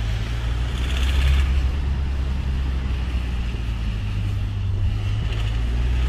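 2009 Honda Accord's 2.2 i-DTEC diesel engine running with a knocking noise that comes on acceleration. The owner takes it for a bottom-end bearing; a mechanic later traced it to a faulty injector.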